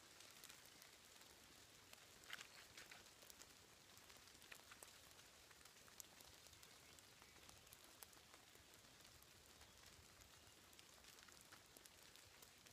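Near silence: a faint hiss with light, scattered ticks of raindrops.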